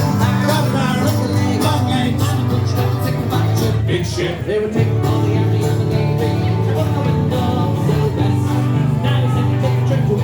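Band playing the instrumental introduction to a folk song, with guitar and a steady bass line.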